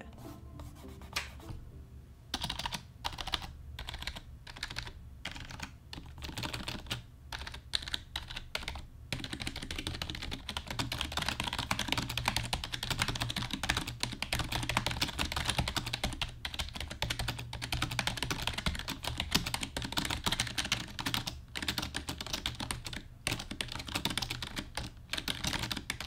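Typing on a SteelSeries Apex 3 membrane (rubber-dome) gaming keyboard, an incredibly quiet, muted keystroke sound. It starts with a few separate key presses, then about nine seconds in turns to continuous fast typing.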